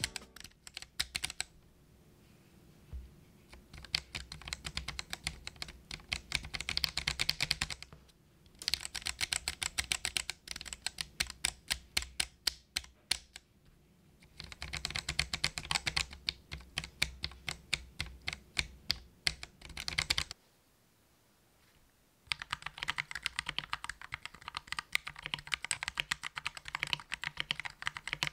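Gateron Yellow linear switches on a mechanical keyboard plate pressed in bursts of rapid key presses with short pauses between, comparing stock switches against switches lubed with Krytox 205G0. After a brief quiet break about 20 seconds in, steady typing on the fully assembled keyboard with its lubed Gateron Yellow switches.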